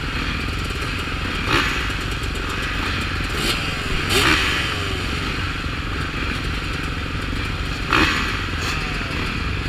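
A line of motocross dirt bikes running at the starting gate, mostly idling, with riders blipping the throttles now and then. Each short rev rises and falls away, and there are louder blips about one and a half, four and eight seconds in.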